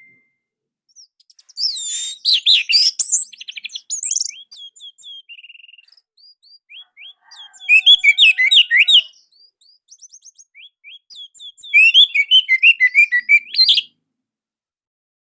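Orange-headed thrush (anis merah) singing: three loud bursts of rapid, high, slurred notes, beginning about 1.5, 7.5 and 12 seconds in, with softer scattered notes between; the song stops about 14 seconds in.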